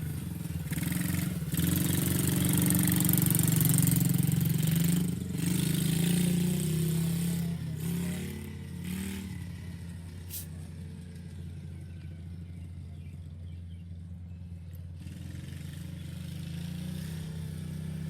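Dirt bike engine running as it is ridden, loudest for the first several seconds, fainter through the middle and picking up again near the end.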